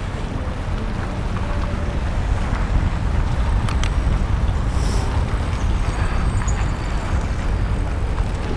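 Steady low rumble of riding a bicycle through city traffic: wind buffeting the camera microphone, mixed with the noise of cars driving close by.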